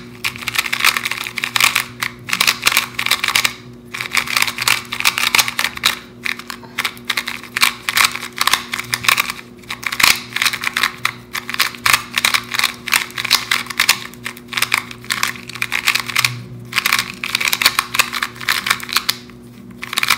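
A YJ MGC 2x2 magnetic speed cube, freshly unboxed and factory-lubricated, being turned quickly in the hands: a dense run of plastic clicks and clacks with a few short pauses, over a faint steady hum.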